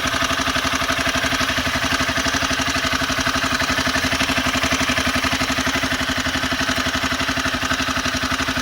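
Honda CBR250R's single-cylinder engine idling with a steady, even beat and a light clatter, the timing-chain noise that the owner puts down to a loose timing chain needing its tensioner tightened.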